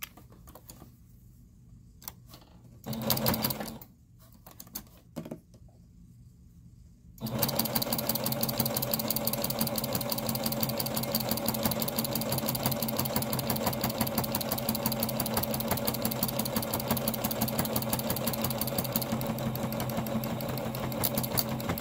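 Singer electric sewing machine straight-stitching through layered terry cloth and cotton. It stops right at the start, runs briefly about three seconds in, then runs steadily from about seven seconds on.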